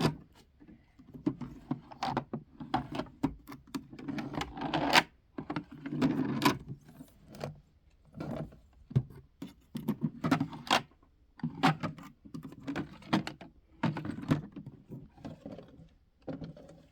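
Small hard objects being handled and set down: irregular clicks, taps and light rattles, with some rustling in between.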